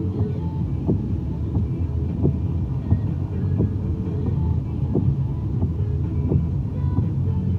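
Music with a steady thumping beat about every 0.7 s and a bass line, over a low vehicle rumble.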